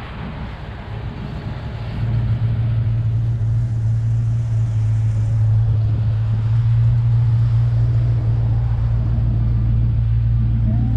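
A motor vehicle engine idling with a steady low hum, which comes in about two seconds in and holds.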